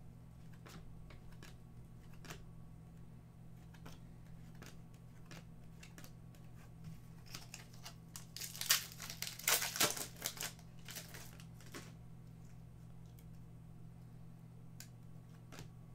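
A foil trading-card pack crinkling and tearing open for a few seconds around the middle, the loudest sound here. Before it, faint ticks of cards being slid through by hand, over a steady low hum.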